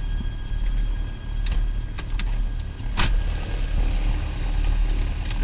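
The twin piston engines of a Piper PA-44 Seminole, two four-cylinder Lycomings, running with a steady low drone heard inside the cockpit. A few short sharp clicks sound over it, the loudest about three seconds in.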